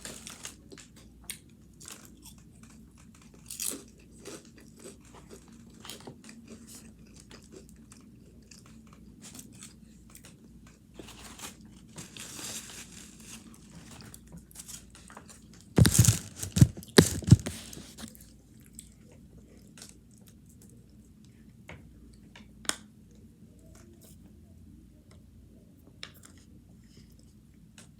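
A person chewing and biting food close to the microphone, with scattered crunches and wet mouth clicks. A loud cluster of sharp crunching strokes comes about sixteen seconds in.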